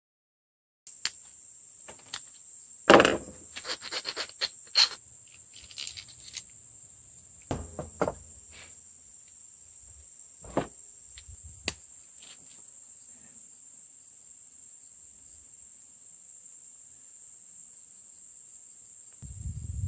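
A steady, high-pitched drone of insects, with scattered sharp clicks and knocks from small 3D-printed plastic parts being handled and snapped together. The loudest knock comes about three seconds in.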